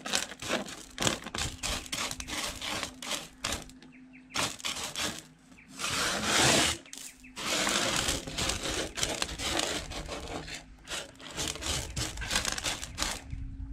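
Hands sliding and raking washed sapphire gravel across a metal sorting table, the pebbles scraping and clicking against the sheet in irregular strokes, with one longer, louder scraping sweep about six seconds in.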